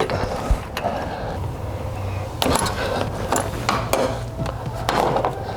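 Scattered metal clinks and taps of an Allen key and spanner on the diverter valve's bolts, at uneven times, over a low steady hum.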